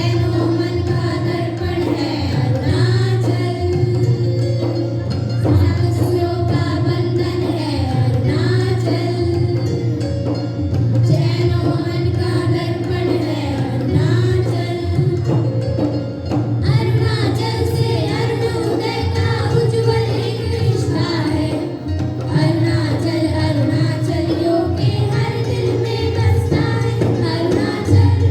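Music: a song with singing voices and drum accompaniment.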